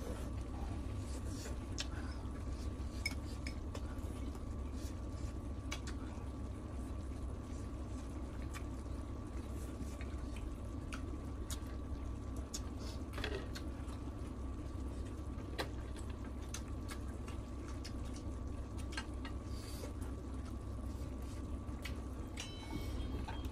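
Mukbang eating sounds: wet chewing and slurping of saucy beef and octopus, with scattered clicks of chopsticks against a bowl and the grill pan, over a steady low hum.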